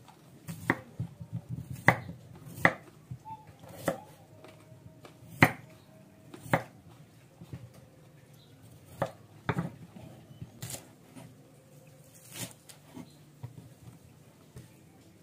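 Kitchen knife cutting a raw potato into chunks on a wooden cutting board: sharp knocks of the blade hitting the board at uneven intervals, about one a second, thinning out near the end.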